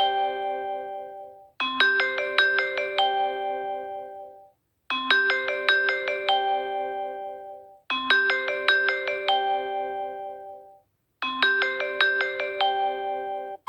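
Samsung Galaxy J7 (2017) ringtone preview playing from the phone's speaker: a short melody of quick bright notes that ring on and fade, repeating four times about every three seconds with a brief gap between.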